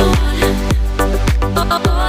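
Background music with a steady dance beat, in an Afrobeat style.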